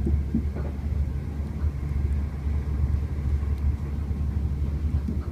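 Passenger train running, a steady low rumble heard from inside the carriage.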